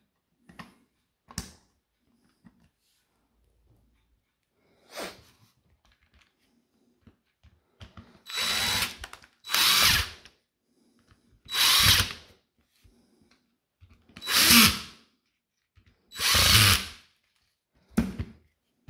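A cordless power screwdriver driving the screws that close a DeWalt 18V XR battery case: five short runs of under a second each, the first about eight seconds in. Faint clicks of the plastic case being handled come before them.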